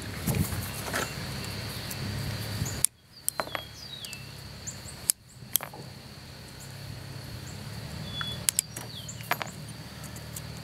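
Scattered light metal clicks and taps from hand work on an electric starter with pliers, over a steady low hum, with a few short high chirps that fall in pitch.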